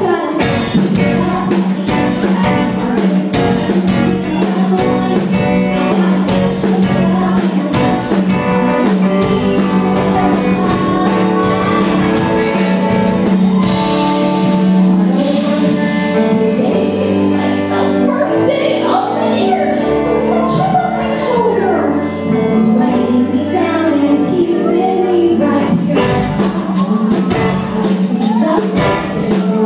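Live pop-rock song: several singers on microphones backed by a band with drum kit. The drumbeat thins out about halfway through and comes back in full near the end.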